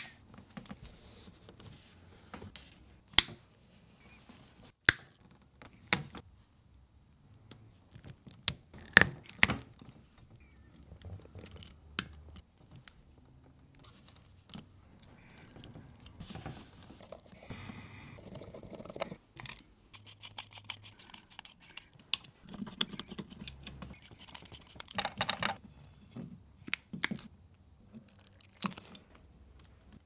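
Wire strippers snipping and stripping the insulation off electrical cable cores: irregular sharp snaps and clicks, with cable and hands rustling and scraping between them.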